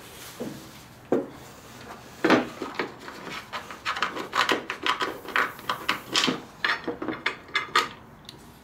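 Small metal hardware handled and turned by hand as a Torx screw is started into a plastic bracket: a sharp knock about two seconds in, then a run of short, irregular clicks and light rubbing from the bit and screw.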